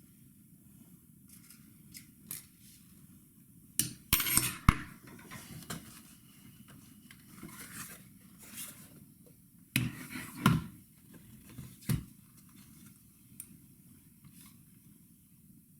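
Small hard parts and tools clicking and clinking during laptop disassembly, with scattered sharp knocks and busier clusters about four and ten seconds in.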